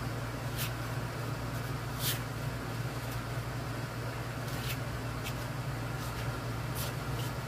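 A putty knife spreading and scraping wood filler on a wooden cabinet, about five short scrapes, over a steady low hum.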